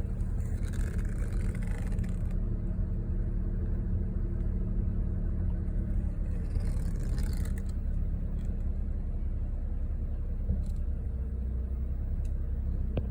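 2012 Honda Accord's four-cylinder engine idling steadily after a cold start, with no grinding noise heard.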